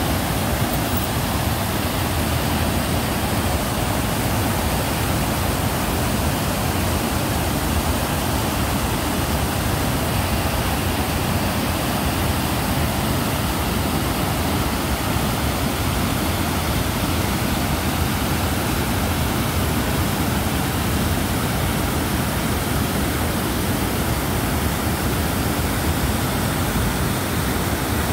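Muddy floodwater pouring over a weir into churning foam below: a loud, steady, unbroken rush of water.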